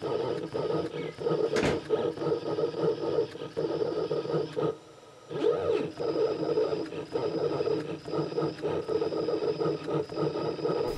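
Stepper motors of a homemade CNC machine whining in short start-stop moves as it drives a pen across paper, writing letters. A sharp click comes near two seconds in, and the motors fall briefly silent about five seconds in.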